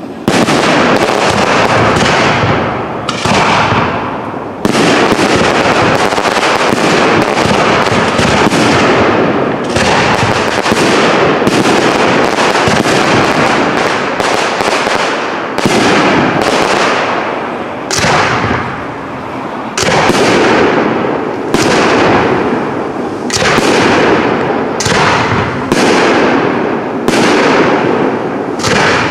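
Professional aerial fireworks display: shell bursts going off in quick succession, loud bangs overlapping one another with their echoes, starting abruptly at the outset.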